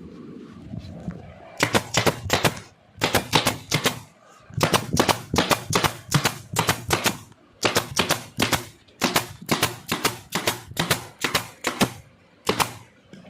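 Upholstery staple gun firing staples in quick runs of sharp clicks, about three to four a second, with short pauses between the runs.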